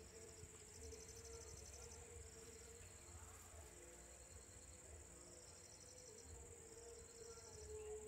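Faint chorus of crickets and other insects at dusk: a steady high-pitched drone, with rapid pulsed trills that come and go.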